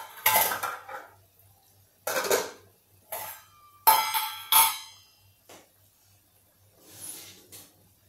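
Kitchen dishes and utensils being handled: several separate clinks and clatters, some ringing briefly, the loudest about four seconds in.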